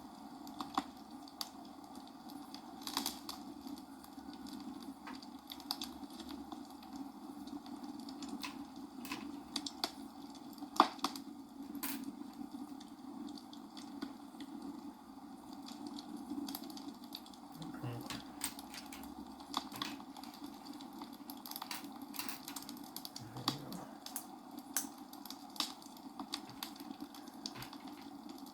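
Small plastic building bricks clicking and tapping as pieces are handled and pressed together, with irregular clicks scattered throughout and one sharper snap about eleven seconds in, over a steady background hum.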